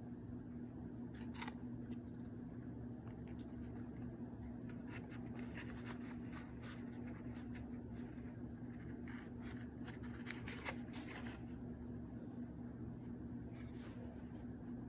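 Light handling noises, scattered rustles, taps and scrapes, most of them in the middle stretch, over a steady low electrical hum.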